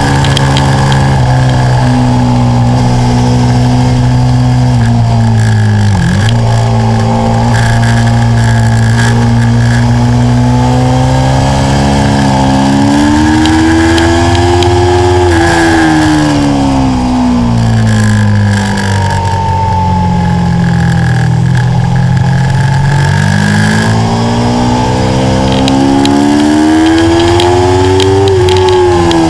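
Stock Aprilia Tuono V4's V4 engine pulling hard on track, its revs climbing steadily and then falling away twice, about halfway through and near the end.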